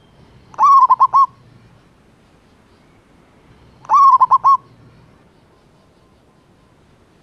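Male zebra dove (perkutut) singing its stuttering cooing song, a quick run of four or five notes repeated twice about three seconds apart.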